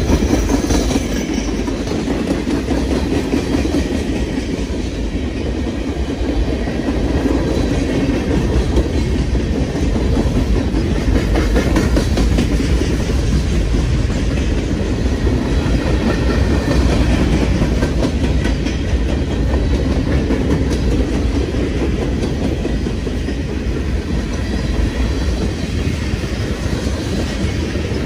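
A Norfolk Southern freight train's cars rolling past close by, wheels clacking steadily over the rail joints over a continuous low rumble.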